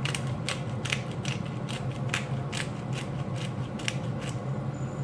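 Pepper grinder being twisted: a steady run of about eleven quick ratcheting clicks, roughly two and a half a second, over a steady low hum.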